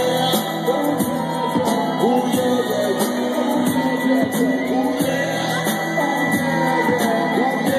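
Live amplified music: voices singing into microphones over an accompaniment with a steady beat.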